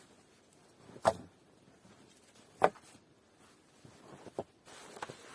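Two sharp knocks about a second and a half apart, followed by a few fainter clicks, with a soft hiss coming in near the end.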